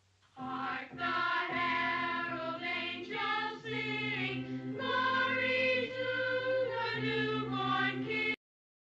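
A choir of children's voices singing long held notes in harmony over steady low notes, the phrases changing every second or two; it cuts off suddenly near the end.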